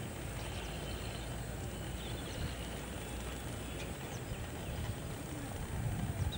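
Outdoor ambience: a steady low rumble with a few faint, short high bird chirps.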